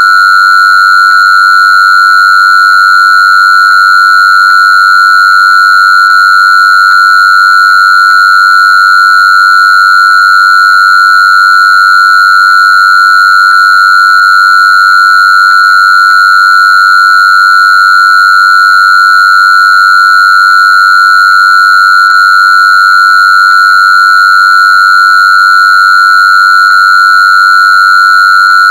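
A loud, steady, high-pitched electronic tone held at one pitch without a break, with fainter overtones above it.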